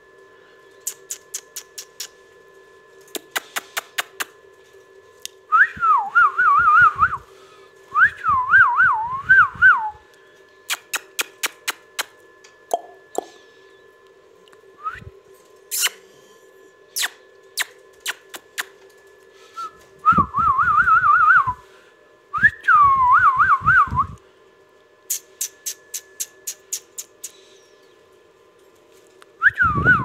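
Rose-ringed parakeet whistling short warbling phrases that wobble quickly up and down in pitch. They come in two pairs, about five seconds in and about twenty seconds in, and another begins near the end. Between the whistles are runs of quick sharp clicks, over a faint steady hum.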